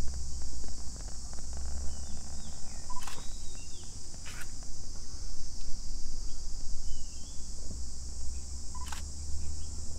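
Insects droning steadily at a high pitch, over a low rumble. A few sharp clicks and short bird chirps come through it.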